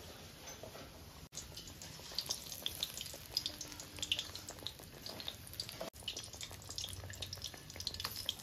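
Besan-battered jackfruit cutlets deep-frying in hot refined oil in an aluminium kadai: a soft sizzle with many scattered crackles and pops, busier from about a second in.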